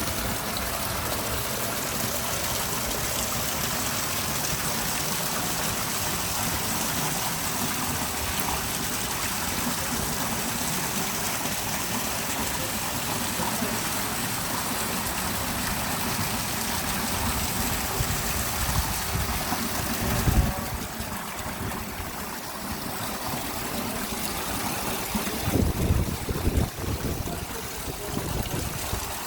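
Water pouring steadily down an artificial waterfall, an even rushing splash. A few louder low bumps come about two-thirds of the way in and again near the end.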